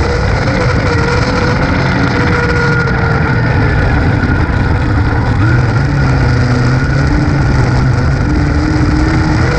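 Dirt-track race car's engine running hard at speed, heard from inside the cockpit over wind and tyre noise. Its pitch sits high early on and drops lower near the end as the car comes off the throttle.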